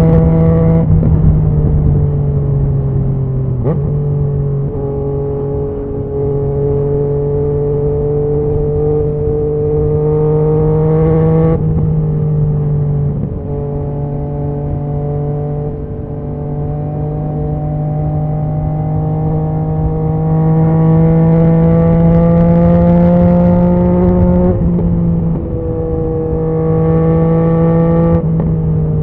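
2019 Yamaha MT-09's inline three-cylinder engine running through a Scorpion Serket full exhaust system, heard from the bike while riding: a steady note that slowly rises in pitch, broken a few times by gear changes, each a brief break or step in the note.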